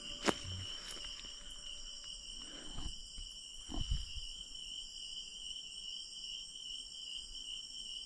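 Night insects trilling in a steady, high-pitched chorus. There is a short click just after the start and a few soft rustles, like steps in leaf litter, about three and four seconds in.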